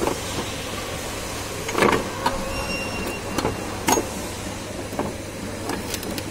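A handful of sharp metal knocks and clatters as the unbolted Hyundai i10 A/C compressor is handled and shifted loose in the engine bay, over a steady low hum. The loudest knock comes about two seconds in.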